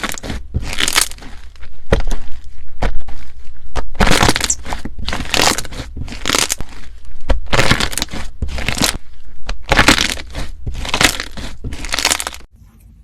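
Slime being squeezed and pressed, giving a loud crackling crunch with each press, about once a second, stopping abruptly near the end.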